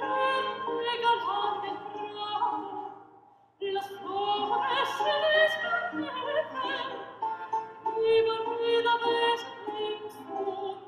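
Background music: operatic singing with accompaniment, in two long phrases broken by a short pause about three and a half seconds in, fading out near the end.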